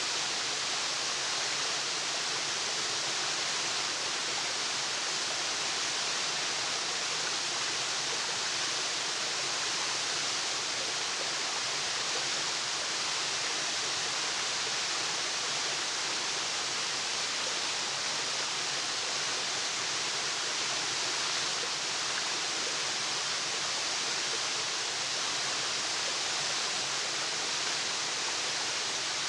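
Waterfall: water falling and splashing in a steady, even rush of hiss.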